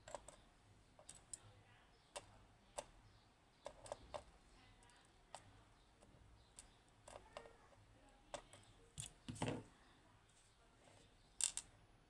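Small, sharp metal clicks and taps at irregular intervals, a dozen or so, the loudest near the end: tiny pins from a Yanai lock being picked out and set down one at a time as the lock is disassembled.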